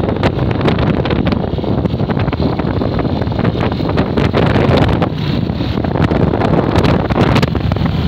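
Wind buffeting the microphone of a camera riding on a moving motorcycle, a loud, steady rush with frequent gusts, with the motorcycle's engine and road noise underneath.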